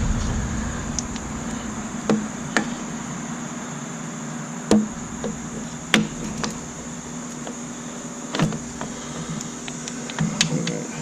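Scattered sharp clicks and knocks of hand tools and car parts being handled, about half a dozen over the stretch, over a steady background hum.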